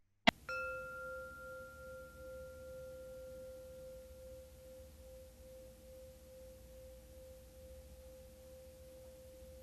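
A single struck meditation chime: one sharp strike, then a pure tone ringing on and slowly dying away, with a higher overtone that fades out about halfway through.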